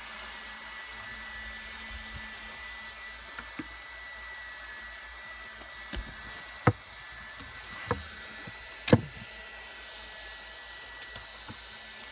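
A few sharp knocks and clicks, a second or so apart in the second half and loudest about nine seconds in, over a steady hiss with a faint high whine. These are plausibly the wooden pattern frame and clamps being handled against the closet panel.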